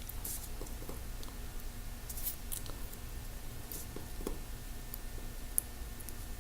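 Faint, scattered light clicks and taps from small phone parts and tools being handled on a work surface during an iPhone battery swap.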